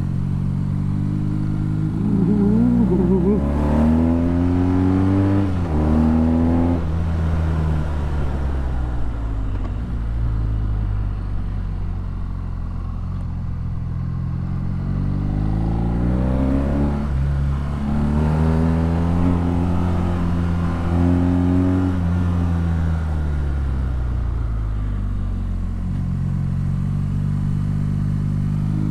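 BMW R nineT's air/oil-cooled boxer twin breathing through an Akrapovič exhaust while riding: the revs climb over the first few seconds and drop off about six seconds in, run low and steady, then climb again from about fifteen seconds, fall away after about twenty-two seconds, and rise once more near the end.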